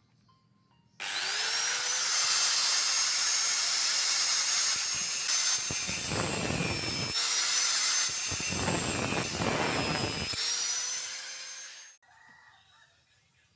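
Electric drill motor spinning up to a steady high whine. Twice its pitch sags under load while a coarse scraping noise of wood being cut comes in. It then picks back up to speed and stops abruptly.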